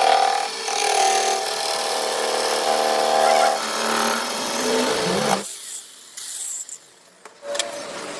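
Metalworking machine tool running with a steady whine, cutting off abruptly about five seconds in.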